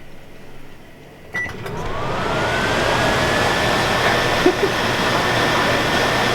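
Microwave oven starting with a click and a short beep, then running: its hum builds up and a whine glides up in pitch and holds steady. Two faint ticks come near the middle, with a metallised chip bag heating inside.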